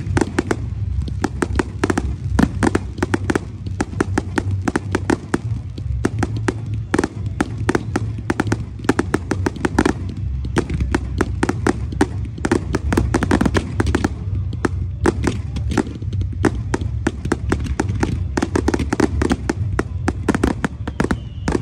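Fireworks display firing a rapid, continuous barrage of sharp cracks and bangs, many a second, from ground-launched comets and aerial shell bursts, over a steady low rumble.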